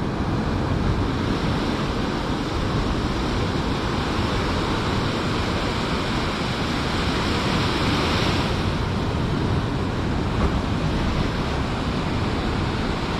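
Storm surf washing and breaking on the shore, with wind buffeting the microphone; the wash grows louder about eight seconds in.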